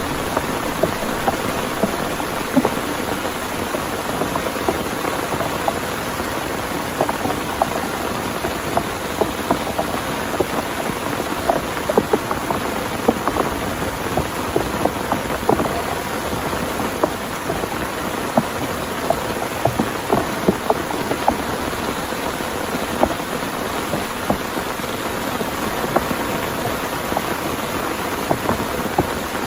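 Heavy rain falling steadily, with many separate drops striking a nearby surface in sharp, irregular ticks.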